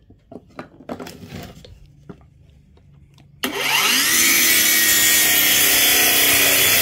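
Cordless brushless 5.5-inch Nagawa mini circular saw: after a few light handling clicks, the motor starts about three and a half seconds in with a rising whine. The blade then cuts through thin plywood, running loud and steady.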